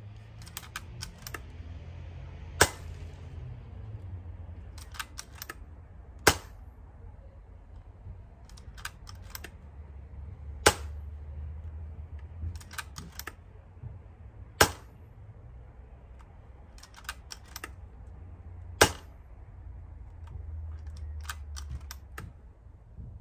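A PCP air rifle firing lead pellets five times, one sharp crack about every four seconds. Before each shot there is a quick run of small metallic clicks as the action is cycled. The shot power is inconsistent, reading 9.3 to 9.9 ft-lb on the chronograph, which the owner thinks is down to the regulator or a seal.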